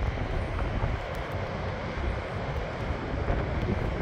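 Strong wind buffeting the microphone in uneven gusts, over the steady wash of ocean surf breaking below.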